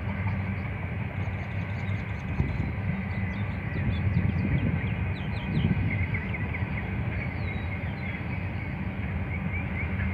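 Double-stack intermodal freight train rolling past at a distance, a steady low rumble of cars on the rails. Birds chirp over it, most around the middle.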